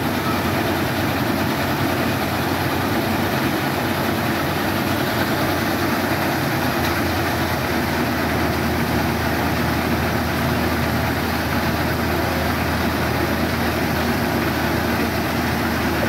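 Laverda M132 combine harvester's engine and machinery running steadily while its unloading auger pours grain into a trolley, a constant heavy mechanical hum.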